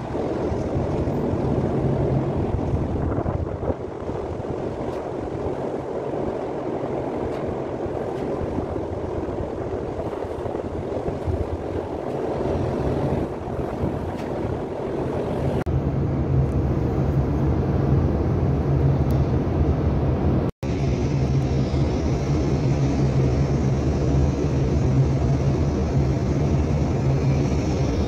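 A large engine droning steadily, with a noisy rush over it; the sound cuts out for an instant about twenty seconds in.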